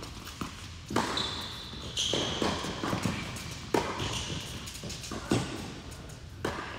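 Tennis rally on an indoor hard court: sharp racket-on-ball hits and ball bounces about a second apart, with short high squeaks of sneakers on the court between them.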